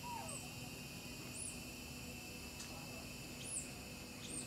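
Steady outdoor insect drone, with a few brief high chirps and a short falling call right at the start.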